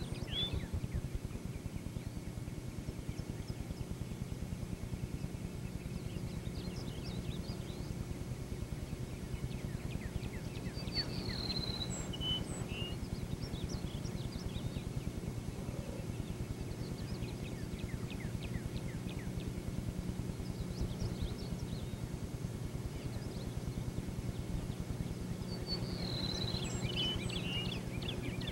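Outdoor field ambience: a bird whistles short high phrases a few times, about a dozen seconds apart, with faint scattered chirps, over a steady low hum.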